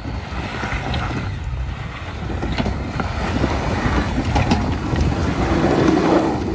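A Jeep climbing a steep, loose trail section: a low engine rumble and tyre noise over dirt and small rocks, with scattered clicks and wind buffeting the microphone. It gets louder toward the end.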